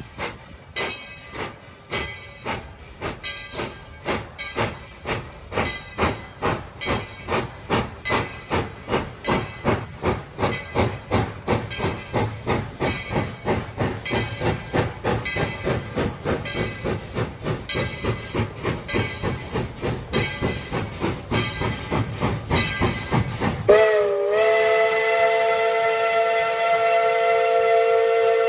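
Tweetsie Railroad No. 12, a Baldwin 4-6-0 steam locomotive, chuffing steadily at about two exhaust beats a second, growing louder as it approaches. About 24 seconds in, its whistle sounds one long blast of several notes at once.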